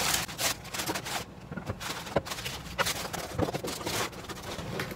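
Cardboard boxes and plastic wrapping being handled and unpacked: scattered rustles, scrapes and light knocks.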